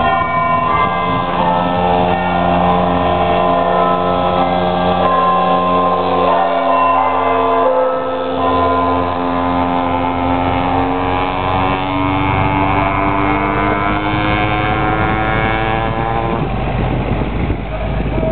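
A pocketbike's small two-stroke engine running at high revs, a buzzy whine. It dips briefly about eight seconds in, then its pitch climbs steadily as the bike speeds up. About sixteen seconds in the whine stops, leaving the lower rumble of a truck engine.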